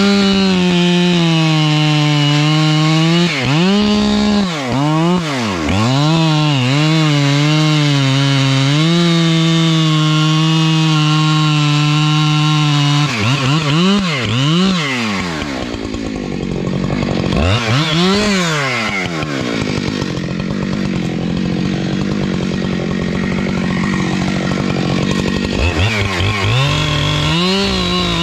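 Husqvarna two-stroke chainsaw cutting through a tree trunk at high revs, the engine note repeatedly dipping and climbing back as the throttle is eased and squeezed. About halfway through the pitch falls and rises twice, and the saw runs lower and rougher for several seconds before revving up again near the end.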